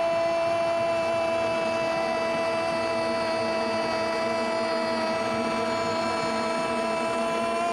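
Steady drone of many vuvuzelas blowing together in a stadium crowd, several held tones sounding at once without a break.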